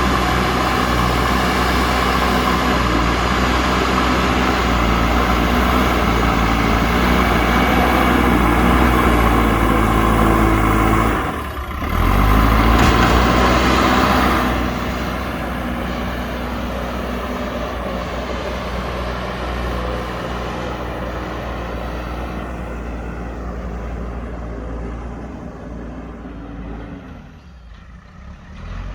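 JCB backhoe loader's diesel engine running under load, with a brief drop about eleven seconds in, a louder stretch for about three seconds after it, and then a steadier, gradually quieter run that dips near the end.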